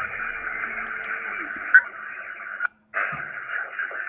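Receiver band noise from a Xiegu X6100 HF transceiver's speaker while tuning the 40 m band in sideband mode: a steady hiss with a faint whistle that fades out, a click, then the audio cutting out for a moment and coming back.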